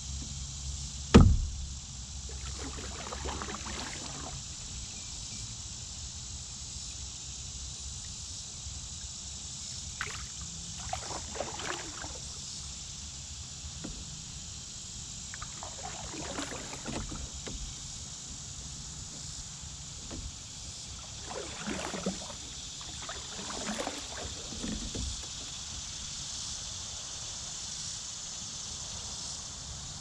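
Canoe paddle strokes swishing through calm water every few seconds, over a steady high buzz of insects. A single sharp knock about a second in is the loudest sound.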